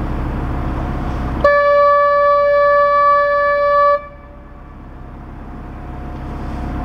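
A boat horn gives one long, steady blast of about two and a half seconds over the narrowboat's running engine, starting and stopping abruptly: a warning sounded ahead of a tight bend. After the blast the engine noise drops away and slowly builds again.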